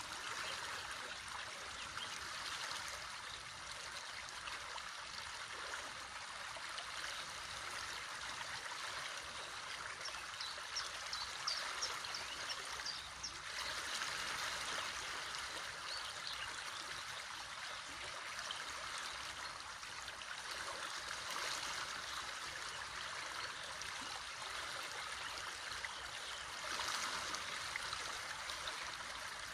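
A river rushing and babbling steadily. A few short, high bird chirps come in about ten seconds in.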